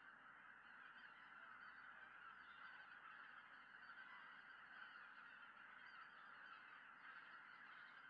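Large flocks of greater white-fronted geese giving their flight calls, a faint, steady, unbroken chorus of many overlapping honks and yelps as they fly in together to roost.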